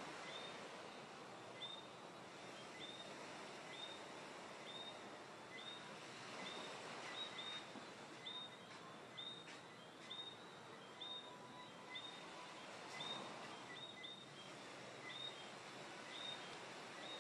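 Night insects calling with short, high chirps, about one a second and sometimes in quick pairs, over a faint steady hiss. The calls are likened to a car alarm.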